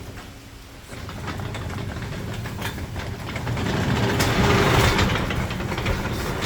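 Old sectional garage door rolling along its tracks, a rattling rumble with many small clicks from the rollers and panels. It starts about a second in and grows louder through the second half.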